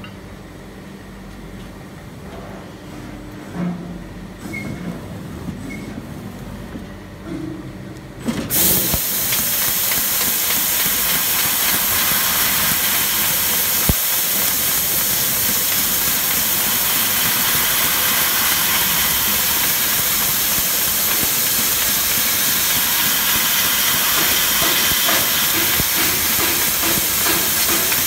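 CNC fiber laser cutting machine: a low machine hum with a few light knocks, then about eight seconds in a sudden loud, steady hiss of the assist gas jet as the head begins cutting the metal sheet.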